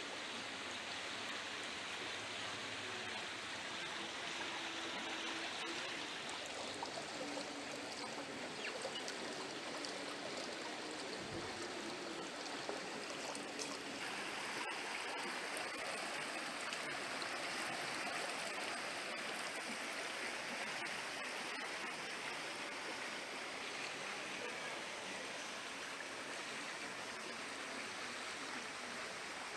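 Shallow, rocky river flowing fast over stones: a steady, continuous rush of water.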